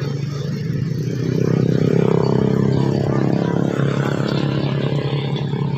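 A motorcycle engine running close by, its steady hum swelling about two seconds in and then easing off a little.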